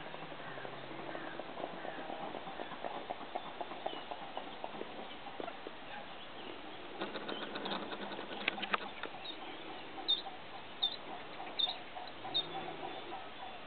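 Outdoor waterside ambience: a steady background hiss with scattered clicks and a dense run of rapid clicking in the middle, then a bird giving four short high chirps, about one every 0.7 s, near the end.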